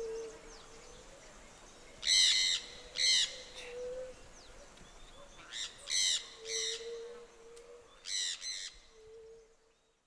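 Sun conure giving loud, harsh shrieking calls in short bouts: a pair about two seconds in, three more around six seconds, and a quick pair near the end.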